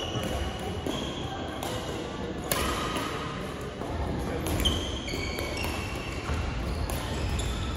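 Badminton play in a large sports hall: scattered sharp racket hits on shuttlecocks and short, high sneaker squeaks on the wooden court floor, echoing through the hall.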